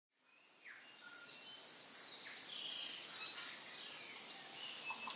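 Several birds chirping and whistling, short calls and quick pitch glides over a steady background hiss, fading in over the first second.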